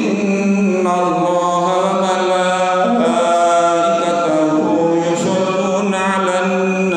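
A man's voice chanting an Islamic recitation in one long phrase of drawn-out, held notes. The pitch steps about a second in and again near three seconds, and the phrase tails off at the end.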